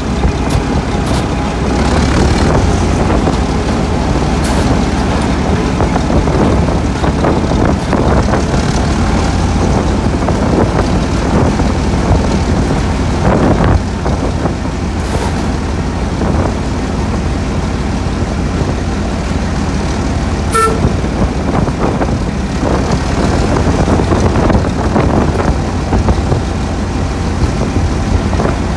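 Class 08 diesel shunter's English Electric six-cylinder engine running steadily under way, with a brief high toot about twenty seconds in.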